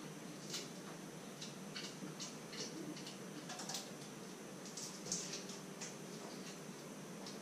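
Light, irregular clicks and soft scrapes of potatoes being peeled by hand over a wooden cutting board, about a dozen small ticks spread unevenly, over a faint steady hum.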